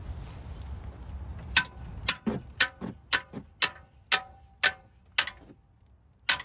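A 10-pound hammer strikes the handle of a breaker bar about nine times, roughly two sharp metallic blows a second with a ring after each. It is hammering the socket on a very tight brake caliper bridge bolt to shock it loose. There is a short pause before a last blow near the end.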